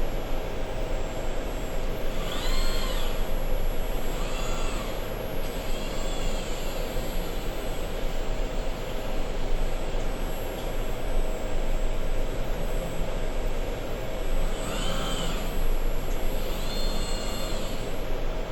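Automated machining equipment running with a steady drone and a constant tone. About five times, a motor whine rises and falls in pitch as an axis moves and stops.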